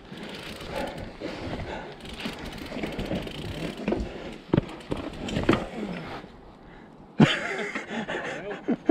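Mountain bike descending rocky dirt singletrack: tyre noise on the dirt with clicks and rattles from the bike over rocks and roots, getting louder about seven seconds in.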